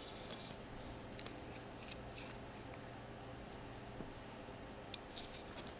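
Faint scattered clicks and light scraping as a nail polish bottle and its brush are handled, over a steady low hum.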